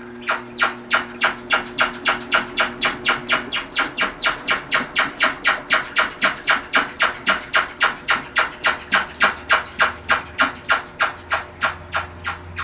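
Toshiba AW-404 fully automatic washing machine making a regular rubbing, swishing noise about three times a second: the abnormal noise this used machine has made since it was carried lying on its side.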